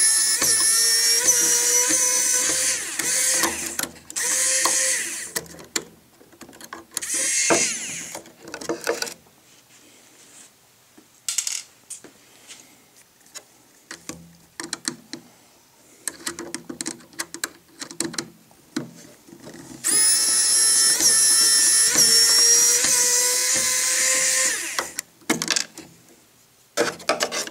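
Small electric screwdriver running with a high whine, turning small screws in the servo mounting holes of a plywood rail to cut threads in the wood. It makes one long run at the start and another a few seconds long near the end, with short runs in between and light clicks and taps of screws being handled between the runs.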